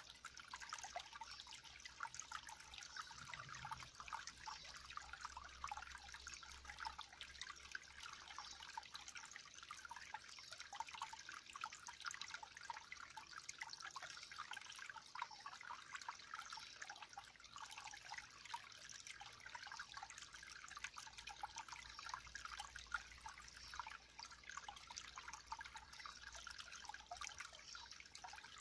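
Faint water trickling and dripping steadily, with many small splashes.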